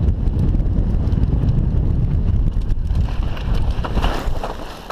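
Wind buffeting a helmet-mounted camera's microphone over the rattle of mountain-bike tyres on loose gravel at speed. The rush dies down near the end, where a scratchy rustling of dry brush against the rider and bike takes over.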